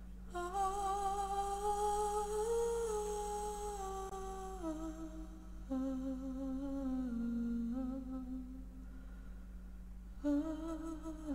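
A woman's voice humming a slow, wordless melody in long held notes that step gently up and down, a new phrase starting near the end, over a steady low hum.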